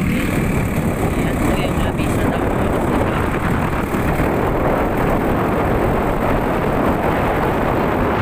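Steady engine and road noise of a moving truck, heard from its open back, with wind buffeting the microphone.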